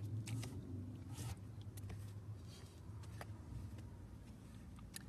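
Low steady hum inside a car's cabin, with a few faint clicks.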